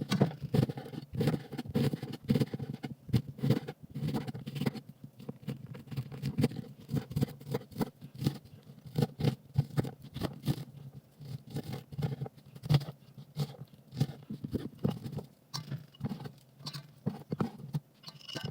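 Knife chopping an onion on a cutting board: a fast, uneven run of short taps.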